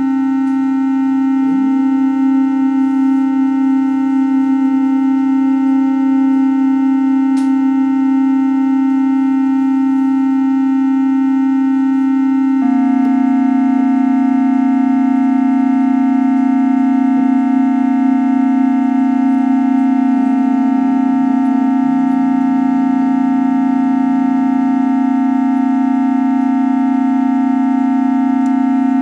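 Small portable electric organ droning a sustained chord of held notes, the chord shifting to a new lower note about halfway through. A few faint wavering, sliding tones rise and bend under the drone in the latter half.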